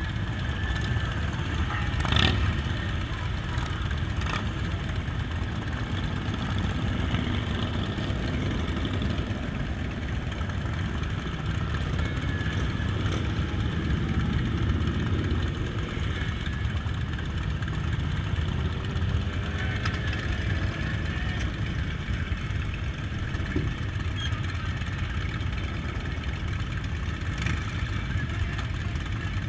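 Motorcycle engines running steadily, with a sharp knock about two seconds in and another near four seconds. Partway through, an engine's pitch slides briefly.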